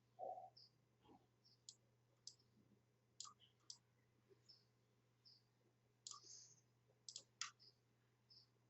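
Faint computer mouse clicks, scattered about once a second, some in quick pairs, over a faint steady low hum.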